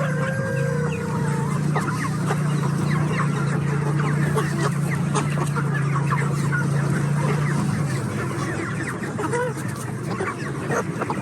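A flock of chickens clucking and calling over one another, many short calls overlapping, with a steady low hum underneath that fades out about eight seconds in.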